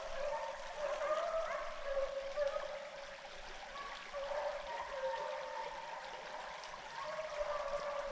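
A pack of deer hounds baying far off as they run a deer's trail, overlapping long wavering bawls that the hunters call "singing", over the trickle of a shallow creek.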